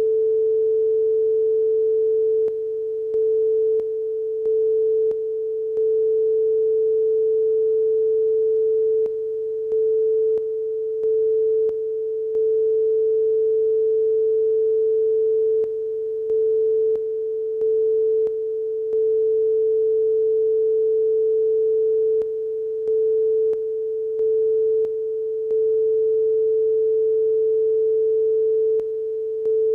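Stereo line-up test tone: a steady pure tone of about 440 Hz, briefly interrupted in groups of three short breaks about every six and a half seconds, the breaks marking the channels for a stereo check.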